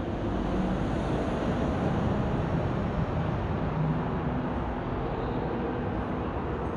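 Steady low rumble of city traffic, with a faint engine hum and no sharp sounds.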